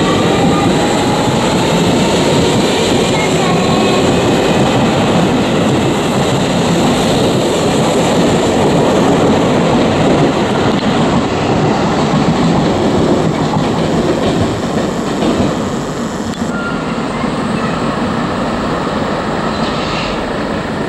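Seibu 40000 series electric train running past at speed, a dense steady rumble of wheels on rail and running gear. Its level eases off in the last few seconds.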